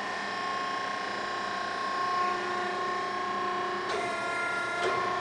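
Hydraulic power unit of a hydraulic corner notcher running with a steady hum made of several fixed tones; the pitch shifts slightly about four seconds in.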